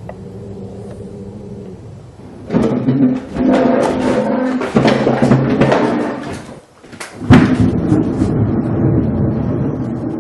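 Dramatic background music with sustained low notes and booming drum hits. It drops out briefly about two-thirds of the way through and comes back with a loud hit.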